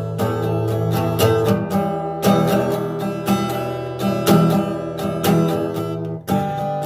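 Acoustic guitar strumming chords, an instrumental piece without singing.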